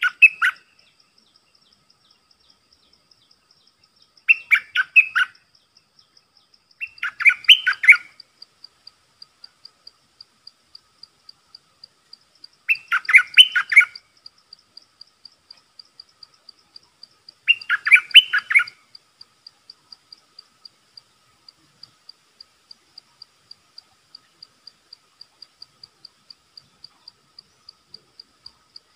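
Bulbul singing: four short, bubbly phrases of rapid notes, each about a second long, spaced several seconds apart. Between them runs a faint, high, evenly spaced ticking.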